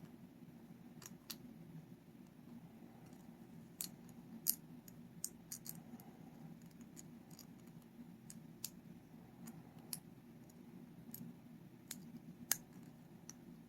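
Faint, irregular metallic clicks of a lock pick working the pin stack inside a 7-pin Paclock 90A-Pro padlock, over a steady low hum.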